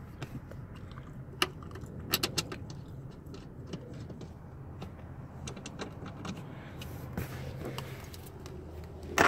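Small metallic clicks and clinks of a car driver seat's track and mounting hardware being handled while the seat is put back in, with a louder knock near the end.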